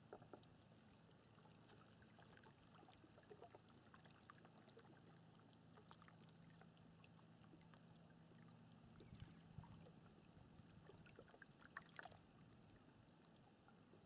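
Calm water, very faint: soft lapping with small scattered drips and splashes, a few slightly louder ones about twelve seconds in.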